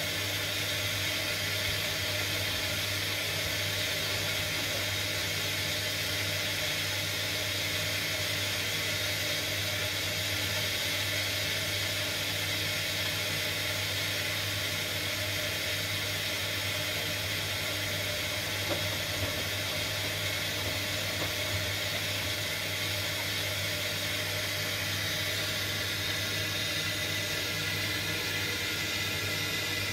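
Front-loading washing machine on its final rinse: a steady motor hum as the drum turns the shirts through the water, with a small click a little past the middle.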